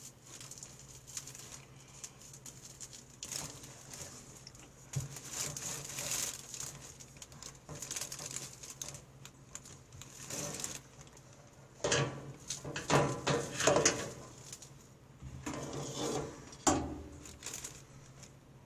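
Irregular rustling, scraping and soft knocks of a hand puppet being handled, with a few louder clusters of handling noise in the second half.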